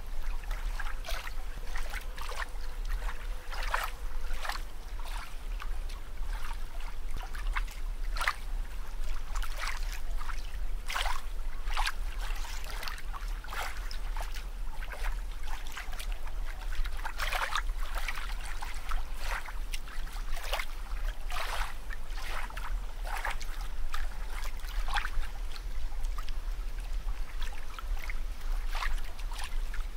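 Bubbling water, with many small irregular pops and splashes over a steady low rumble.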